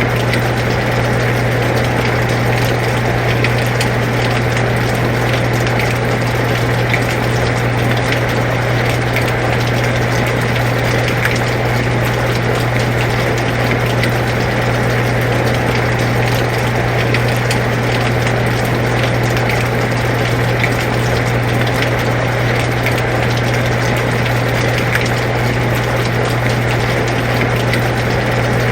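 Air conditioner running with a steady low hum, layered with rain falling as a continuous even hiss with scattered light ticks.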